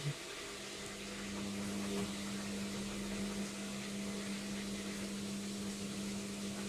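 Logik washing machine starting up with a short thump, then running with a steady hum.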